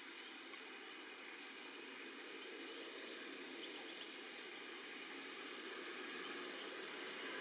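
Steady rain falling, an even hiss that grows slightly louder, with a few faint high chirps about three seconds in.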